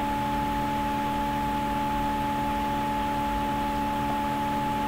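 Steady hum and hiss with several constant tones layered in, unchanging throughout.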